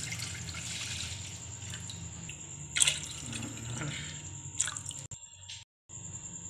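Milk pouring in a stream into a stainless-steel saucepan, splashing and gurgling, with a couple of louder splashes; the pouring stops about five seconds in.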